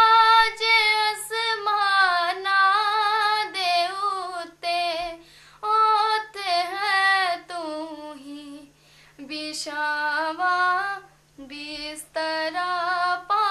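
A young woman singing a Punjabi Christian devotional song unaccompanied, in long ornamented held phrases that bend up and down in pitch, with short breath breaks between them.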